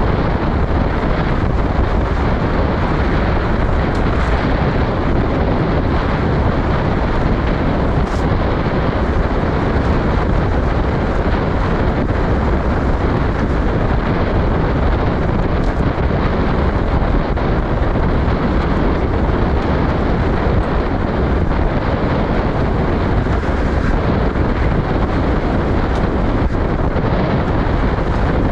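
Steady wind noise on the microphone over the rumble of a safari jeep driving along a dirt track.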